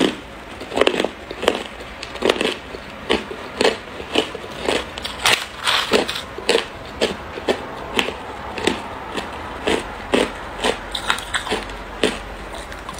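Crushed ice crunched between the teeth: a steady run of sharp, loud crunches, about two a second.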